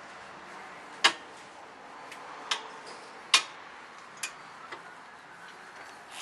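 Five or six sharp clicks and knocks at uneven intervals, the three loudest in the first half, from parts of a parked zero-turn mower being handled.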